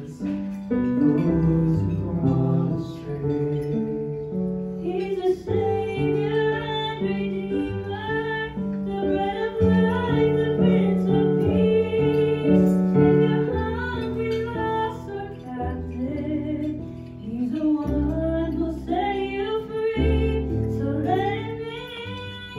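A woman singing a solo song through a handheld microphone, accompanied by guitar.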